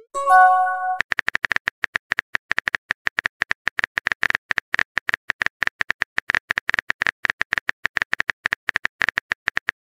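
Texting-app sound effects: a short message-sent chime with a few clear tones at the start, then a rapid run of keyboard typing clicks, many a second, through the rest.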